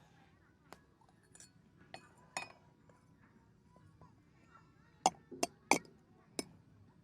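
Sharp clinks and knocks of hard objects being handled: a few light ones spaced out at first, then a quicker, louder run of four about five seconds in.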